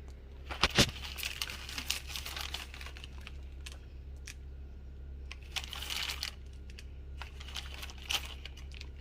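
A plastic bag of chocolate chips crinkling and rustling in short bursts as chips are shaken out, with a couple of sharp clicks about a second in.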